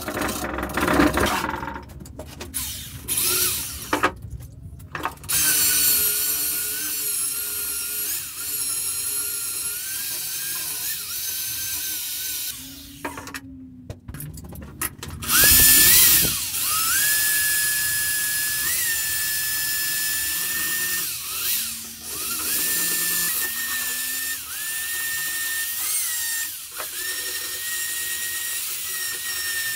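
Electric drill fitted with a wire brush running in two long stretches, scrubbing rust and old paint off a cast-iron vise body; its steady motor note dips briefly now and then as the brush is pressed on. Metal clinks and scrapes from handling the vise parts come in the first few seconds.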